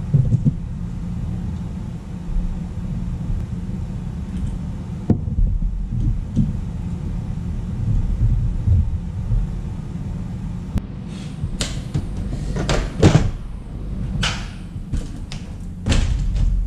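A steady low rumble with a few clicks, then in the second half a run of short scraping and clattering sounds as the opened power supply and tools are handled on the workbench.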